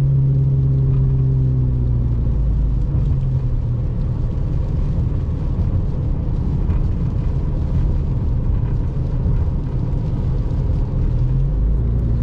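Car cabin noise while driving on a rain-wet road: a steady low hum of engine and tyres. The engine tone fades after a couple of seconds and comes back, rising a little, near the end as the car picks up speed.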